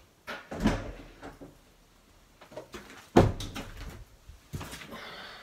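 Glass-paned outhouse door being opened with a clunk about half a second in. A large wooden slab is then handled through the doorway: a loud knock about three seconds in, a few lighter knocks, and rustling near the end.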